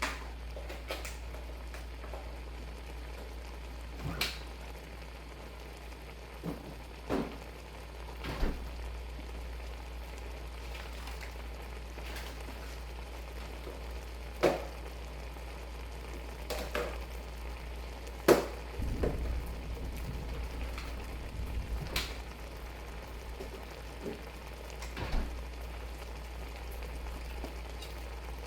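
Shrimp simmering in a pan, with irregular pops and crackles over a steady low hum, busier for a few seconds past the middle.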